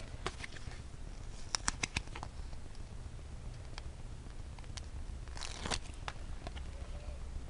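Paper craft materials being handled and cut: scattered light clicks and snips, with a short rustle of paper about five and a half seconds in.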